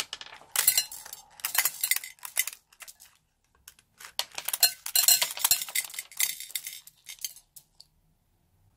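Tiny foam beads crackling and pattering into a clear bowl as a bead-filled balloon is squeezed and snipped open with scissors, in two spells of dense clicking.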